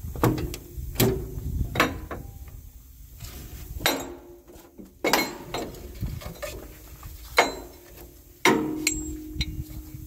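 Irregular metal clanks and knocks from tools and parts being worked, about seven strikes over ten seconds, the last one ringing on for over a second.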